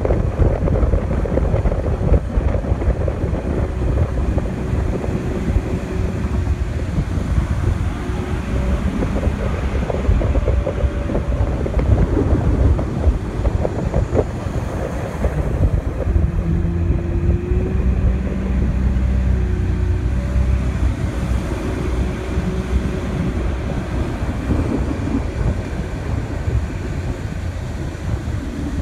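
Outboard motor of a small open boat running steadily, its pitch shifting slightly now and then, with wind rumbling on the microphone.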